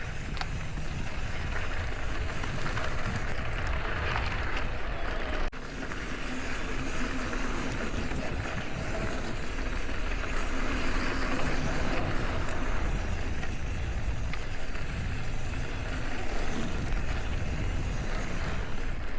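Wind buffeting the microphone over steady riding noise from an e-bike rolling along a dirt trail, with a short dip about five seconds in.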